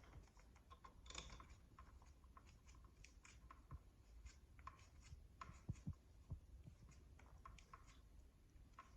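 Faint, irregular small clicks and scrapes of stripped electrical wires being handled and twisted together.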